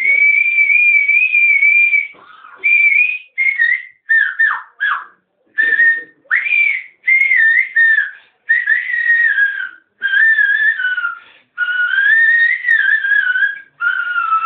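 A man whistling an uzun hava folk melody: one clear tone with sliding pitch turns, in phrases of about one to two seconds broken by short pauses.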